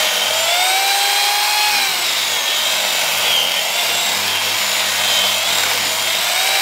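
Electric chainsaw cutting through an aspen log: a steady motor whine that dips and climbs back in pitch as the chain bites and frees, over the rasp of the chain in the wood.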